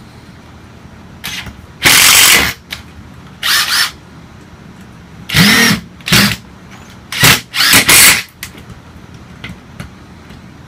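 Power driver running in several short bursts, each spinning up and winding down, as it drives the chair's assembly screws.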